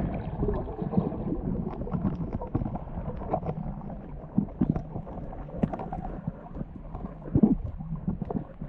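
Muffled underwater noise heard through an action camera's waterproof housing: a low, steady water rumble with irregular knocks and taps.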